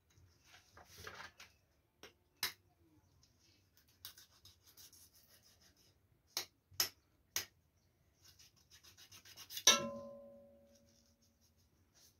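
Faint scraping and rubbing of a knife cutting raw chicken into pieces, with a few sharp knocks of the blade. Near the end a metal cooking pot clangs once loudly and rings as it fades.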